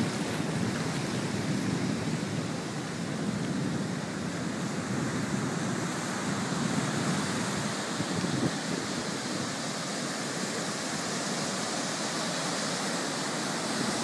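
Ocean surf breaking and washing up a sandy beach: a steady, even rush of waves.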